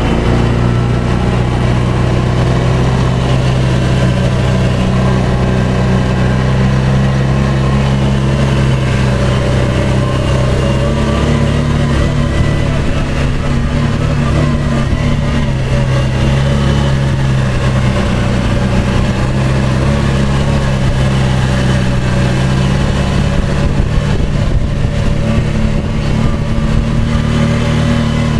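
A vehicle's engine running steadily as it drives along, its pitch rising and falling a little with the throttle.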